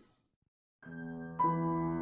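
Dead silence, then soft ambient film-score music fades in just under a second in with long held notes. A fuller, louder chord joins about halfway.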